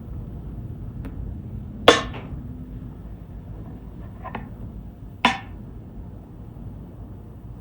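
Hard parts being handled and set down: a few sharp knocks and clinks, two of them loud, over a low steady rumble.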